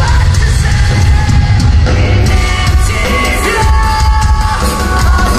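Rock band playing live at full volume, with dense drums and bass; a held high note comes in about two seconds in.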